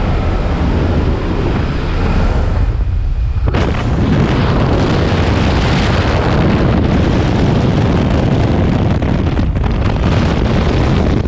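Loud rush of wind with aircraft engine noise at the open door of a skydiving plane in flight, the airflow buffeting the helmet camera's microphone. It grows fuller and louder about three and a half seconds in, as the camera moves outside the door into the slipstream.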